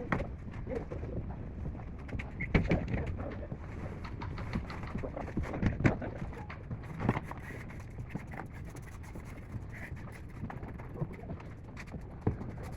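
A pigeon cooing, with scattered short scrapes and knocks from hand work on plaster.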